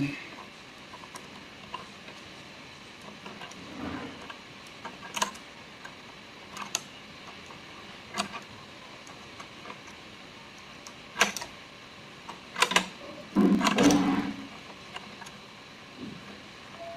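Screwdriver and screw being worked into a sewing machine: scattered sharp clicks and taps of metal on metal, with a louder stretch of handling noise about three quarters of the way through.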